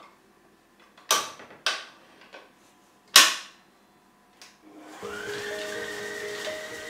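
Sharp metal clunks as a Kenwood stand mixer's beater and tilting head are set in place, four knocks with the third the loudest, then the mixer's motor starting about five seconds in and running steadily with a whine that rises as the beater comes up to speed.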